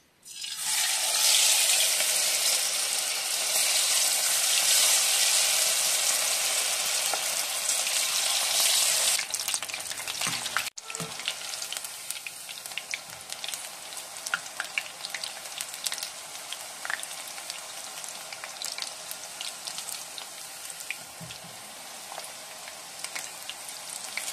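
Batter-coated lotus stem strips deep-frying in hot mustard oil: a loud sizzle as they go in, dropping after about nine seconds to a quieter, steady sizzle with scattered small crackles.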